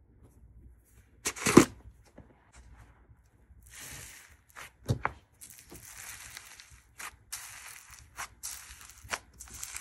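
Plastic slime tub opened with one sharp, loud pop about a second and a half in. Fingers then press and pull into a sponge-cake-textured slime, making repeated crackly, crunchy squishes with small clicks between them.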